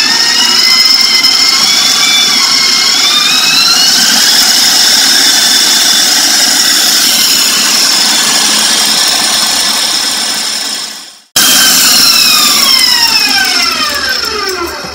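KitchenAid Professional 6 stand mixer beating eggs and maple syrup with its wire whisk. The loud motor whine climbs as the mixer speeds up and then runs steady at high speed. After a sudden break about eleven seconds in, the whine falls steadily as the motor is switched off and winds down.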